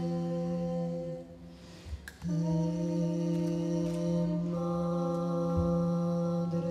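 Women's voices singing a cappella, holding long steady chords like a drone. The chord breaks off about a second in and re-enters with new notes about two seconds in, then shifts again midway.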